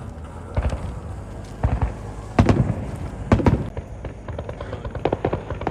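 Fireworks going off: four sharp bangs about a second apart, with a few smaller pops, over a steady low rumble.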